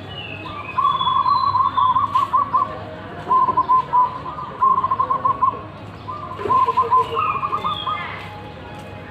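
Zebra dove (perkutut) cooing in about five phrases of rapid, trilled notes at a steady pitch, separated by short pauses; the first phrase, about a second in, is the longest. Thin, higher descending chirps from another small bird sound near the start and near the end.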